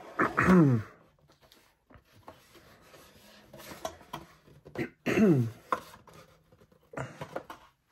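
A cardboard box being handled and opened by hand: faint rubbing and light taps on the cardboard. Two short groans fall in pitch, one about half a second in and one about five seconds in, and are the loudest sounds.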